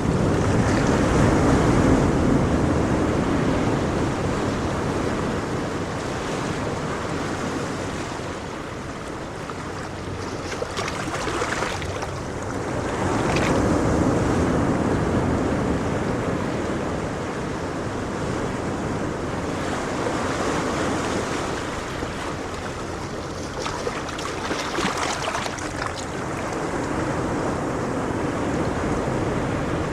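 Ocean surf: a continuous rush of waves that swells and eases every several seconds.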